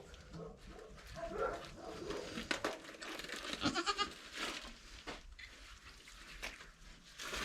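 Doe goat in labor giving a few quiet calls, with scattered rustles and knocks in the pen.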